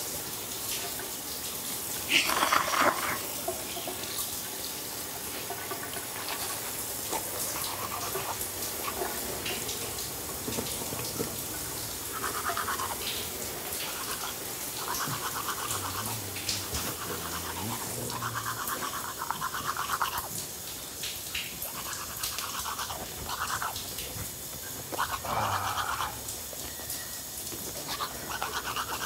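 Toothbrush scrubbing teeth in repeated short bursts of rapid back-and-forth strokes, with brief pauses between them.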